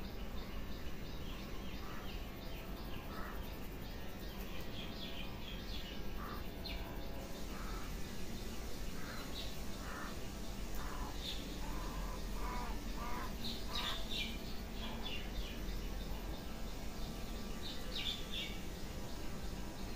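Birds calling in short, scattered chirps, with crows cawing among them, over a steady background hiss.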